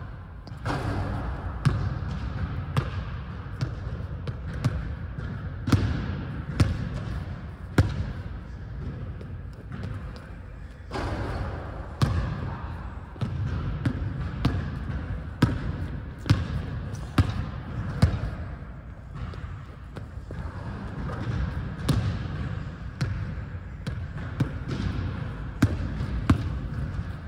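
Basketball bouncing on a hardwood gym floor as it is dribbled, sharp bangs at irregular spacing, roughly one a second.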